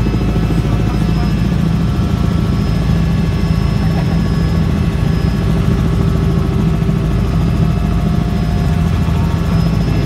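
Helicopter running steadily, heard from inside the cabin: a loud, constant low drone with a fast, even beat from the rotor.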